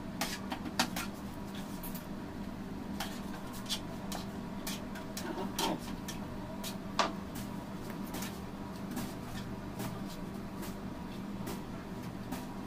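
Steady low hum under irregular light clicks and taps from handling a piping bag and cake turntable while whipped cream is piped onto a cake.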